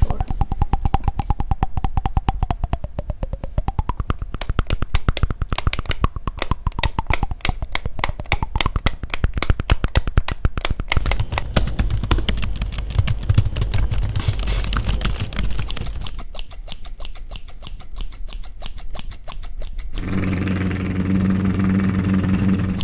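A rapid, uneven series of sharp clicks, with a low steady hum coming in near the end.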